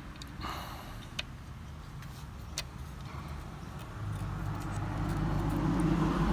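A few sharp metallic clicks and a brief clinking rustle as disc brake pads are handled and seated in a bicycle brake caliper. From about four seconds in, a vehicle engine's low hum rises and grows louder.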